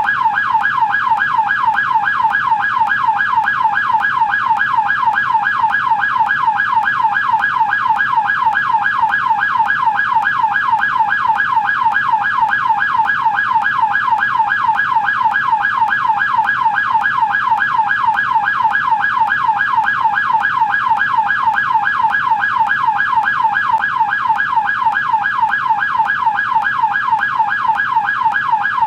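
American police car siren in yelp mode: a quick, evenly repeating rise and fall in pitch that runs on without a break.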